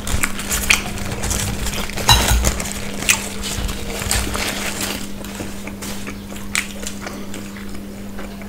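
Spoons and forks clinking and scraping on plates in irregular taps, with a paper food wrapper rustling as it is peeled off, over a steady low hum.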